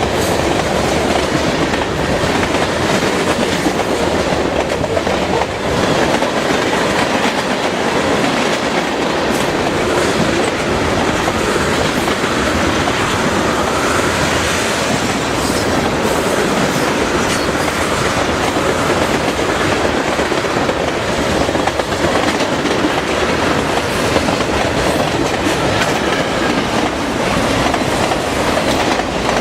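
Freight train cars rolling past at speed: a loud, steady rumble of steel wheels on rail, with clicking over the rail joints.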